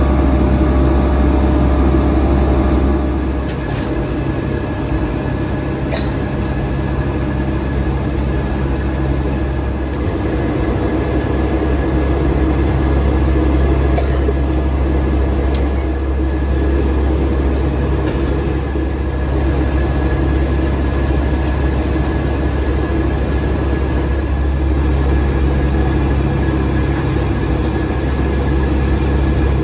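Steady cabin drone inside a Boeing 757-200 in flight, from its Rolls-Royce engines and the airflow, with a deep constant hum and a few faint clicks.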